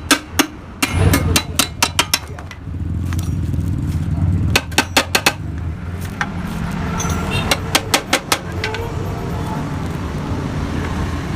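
Quick runs of sharp metal taps, like a hammer on steel exhaust pipe, over a steady low machine hum.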